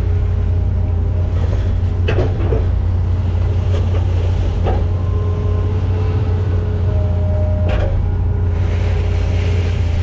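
Hitachi ZX210F-5G excavator's diesel engine running steadily, heard from inside the cab, with thin whining tones coming and going as the hydraulics work the arm and bucket. Three short clunks from the machine, about two, four and a half and seven and a half seconds in.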